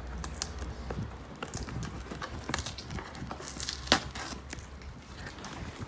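Irregular clicks, taps and rustles of a package being handled and opened, with one sharper knock about four seconds in.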